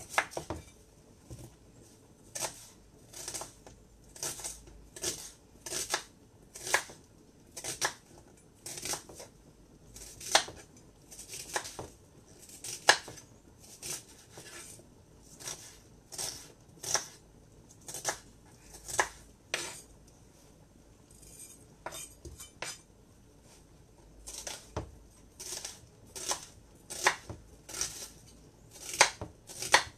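Kitchen knife slicing an onion and knocking on a cutting board: one sharp cut every half second to a second. A few seconds of softer clicks come about two-thirds of the way through.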